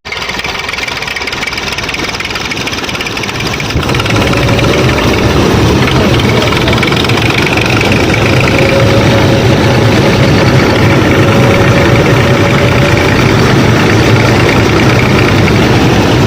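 Small motor of a DIY miniature farm machine running steadily, growing louder about four seconds in.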